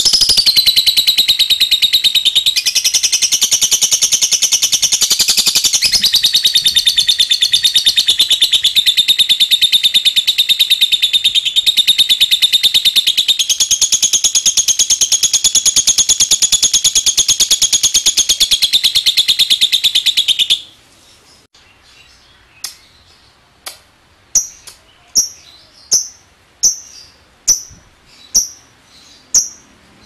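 Fischer's lovebird singing a long unbroken 'ngekek' trill, a rapid high chatter that shifts pitch in steps, which stops suddenly about twenty seconds in. After a short pause it gives single sharp 'ngetik' chirps, a little more than one a second.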